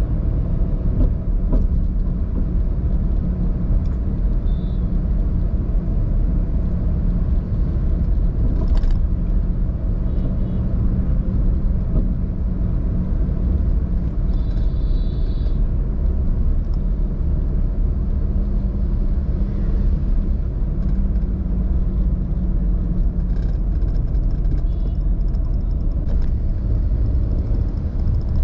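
Steady low rumble of a car driving on the road, engine and tyre noise. A few short faint high tones come through now and then, the longest about halfway through, with a sharp click about nine seconds in.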